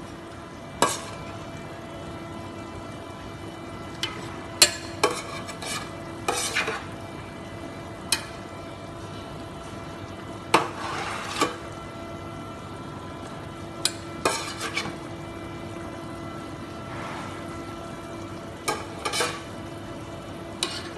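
Metal ladle stirring soup in a steel stockpot, knocking and scraping against the pot's side every few seconds, sometimes in quick runs of clinks, over the steady hiss of the simmering pot.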